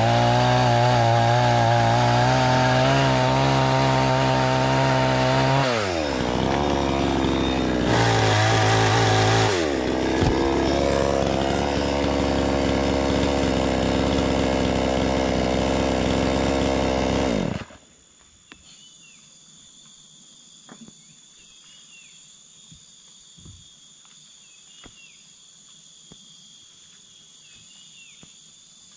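Two-stroke chainsaw at full throttle cutting into the top of a wooden post. It drops to idle about six seconds in, revs high again briefly, then runs lower until the sound cuts off abruptly about two-thirds of the way through. After that, faint steady insect chirring with a few light knocks.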